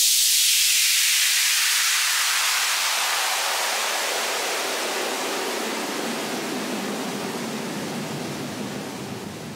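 Filtered white-noise sweep effect closing an electronic dance track: a hiss that spreads from high to low pitch and slowly fades out.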